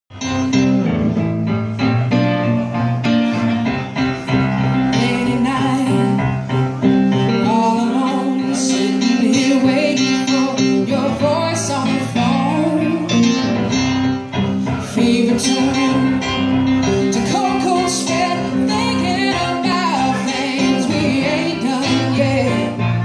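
Live song on electric guitar and keyboard with a woman singing, the music starting abruptly at the beginning.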